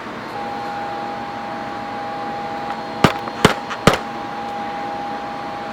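A 40 MB laptop hard drive that is stuck and will not spin up properly, giving a steady whine, with three sharp clicks about three to four seconds in. It should not sound like this: the owner suspects stiction.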